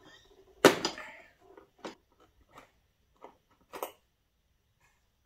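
Hands working at the rear lock inside a Suzuki V-Strom's plastic tail section: one sharp knock about two-thirds of a second in, then a few lighter clicks and taps over the next three seconds.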